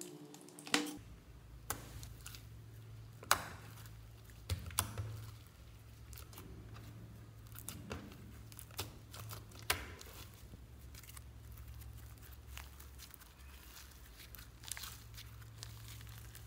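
Hands squeezing, folding and stretching white slime mixed with glitter, giving irregular sticky pops and crackles over a low steady hum; the loudest pops come about a second in and between three and five seconds in.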